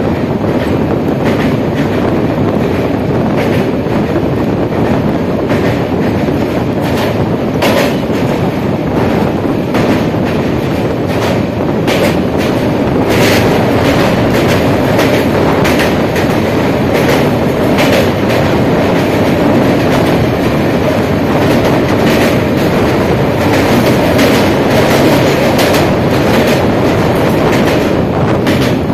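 Passenger train running over a steel truss railway bridge: a loud, steady rumble of wheels on rail with irregular clicks and clacks. Around the middle, another train passes by on the adjacent track.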